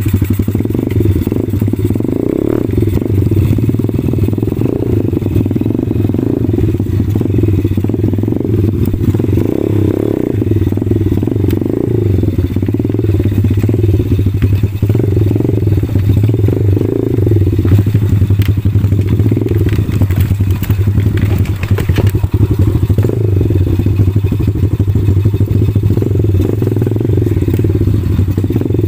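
Small 110 cc pit-bike engine running continuously while being ridden, its revs swelling and easing a little with no hard revving.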